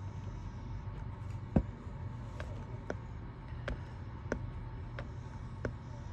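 A series of short sharp clicks, about one every half second to one second, the loudest about one and a half seconds in, over a low steady hum.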